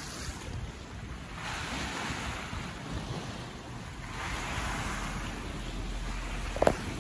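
Caribbean sea waves washing, swelling twice, with wind buffeting the microphone as a low rumble. A short sharp knock near the end is the loudest sound.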